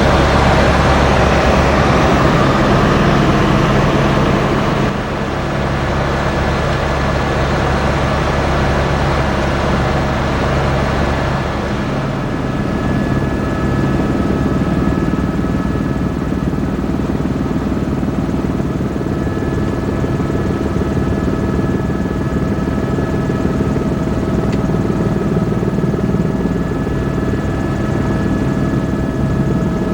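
Steady engine and rotor noise of a helicopter in flight, heard from inside the cabin. A steady high whine comes up about twelve seconds in.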